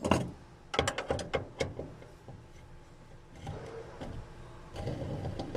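A series of light clicks and knocks, several in quick succession about a second in, then softer scraping and rustling near the end: the sound of tools or parts being handled.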